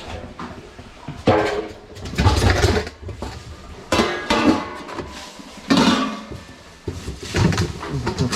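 Metal cookware clanking and scraping in separate bursts every second or so, as cooked bones are lifted out of a small pressure cooker and moved into a bigger pot.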